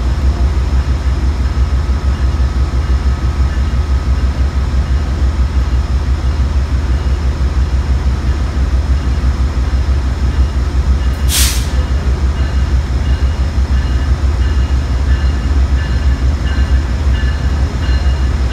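Amtrak GE Genesis diesel locomotive pulling into a station at slow speed, a steady low rumble of its engine and train. About eleven seconds in there is a short burst of hiss, and in the second half a faint, regularly repeating ringing tone.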